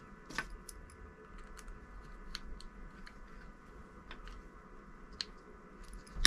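Scattered small clicks and taps of a DC barrel jack and its screw-terminal block being handled as wires are fitted and secured, with a sharper click right at the end.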